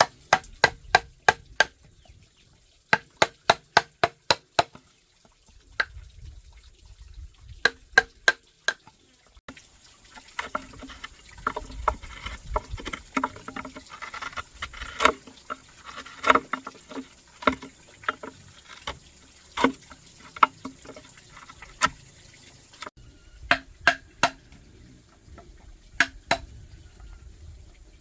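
Rapid runs of sharp, ringing knocks, about four to five a second, in groups lasting a second or two with short pauses between them.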